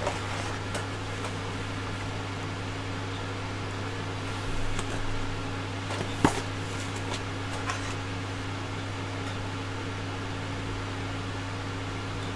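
Steady low background hum running without change, with paper rustling briefly around the middle and a single sharp click a little after.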